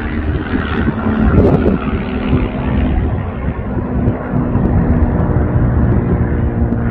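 Fagradalsfjall volcano's lava fountain erupting from the crater: a loud, steady, deep hum like a plane taking off, which swells about a second in as the fountain surges.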